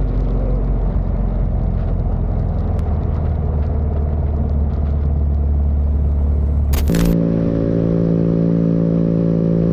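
Motorcycle engine running with wind rumble while riding, with a few light clicks. About seven seconds in there is a brief hiss at a cut, then a motorcycle engine holding a steady pitch.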